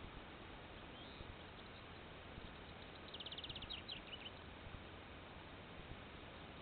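Faint steady hiss, with one short, rapid high-pitched trill of chirps a little after three seconds in and a few single chirps right after it, from a small animal calling.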